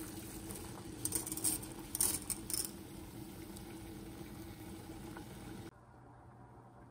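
A stainless pot of water at a rolling boil, bubbling steadily, with a few short crackling bursts between about one and three seconds in as dry spaghetti is lowered into it. About six seconds in the sound cuts abruptly to a quieter, steadier noise.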